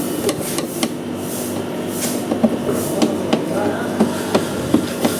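Sharp plastic clicks and knocks, about a dozen at irregular intervals, as clipped-in plastic body panels of an electric scooter are worked loose by hand. Under them runs a steady background noise with a low hum.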